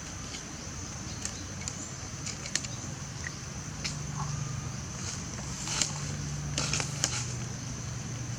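Outdoor background noise: a steady high-pitched whine throughout, scattered sharp clicks, and a low hum that comes in about three and a half seconds in.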